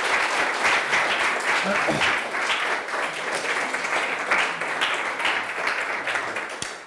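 Audience applauding: a dense patter of many hands clapping that thins out and stops near the end.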